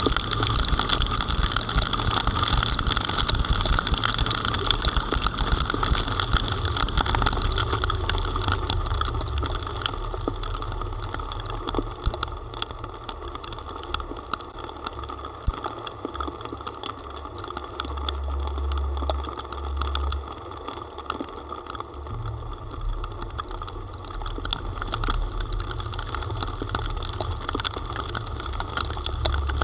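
Heavy rain pattering on a car-mounted camera and car body during a drive, the drops landing as many small ticks, over the low rumble of the car and wet-road noise. The rain is heaviest in the first several seconds.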